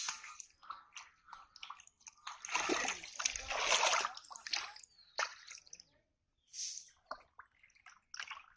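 Hands splashing and churning shallow muddy water while groping for fish. The splashes come as scattered short sloshes, with a longer, louder stretch of splashing about halfway through.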